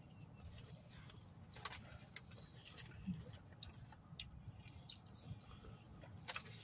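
Soft eating sounds: chewing with scattered light clicks and rustles as fries are handled from a cardboard fry carton, over a faint low steady hum.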